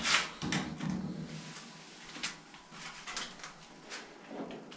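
Handling noises: a wooden-framed mesh drying sieve scraping down onto a concrete floor at the start, then scattered light knocks and clicks as a plastic crate is handled.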